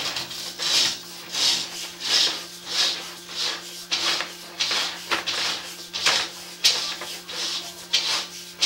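Sewer inspection camera's push cable being fed into the drain line, making regular rubbing, scraping strokes about one every 0.7 seconds, with a steady electrical hum from the camera unit underneath.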